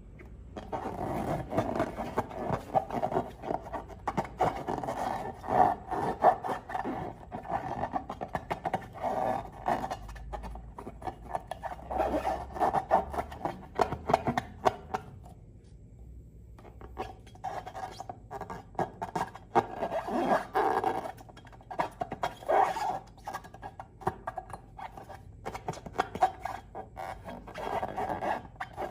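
Hands kneading and squishing slime: a dense, wet crackling of many small clicks and pops, stopping for a couple of seconds a little past the middle and then starting again.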